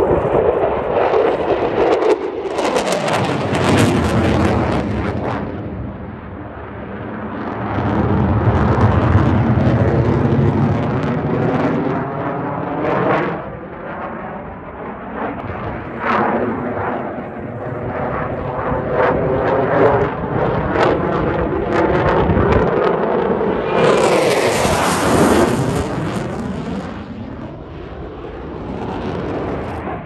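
Fighter jet flypasts: jet engine noise that swells and fades several times, loudest a few seconds in, around ten seconds in, and again about 25 seconds in, with sweeping changes in pitch as the aircraft pass.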